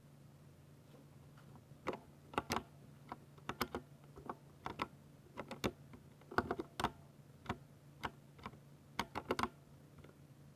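Typing on a Ducky 60% mechanical keyboard with silver switches: irregular keystrokes, some in quick runs, starting about two seconds in. A faint steady low hum sits underneath.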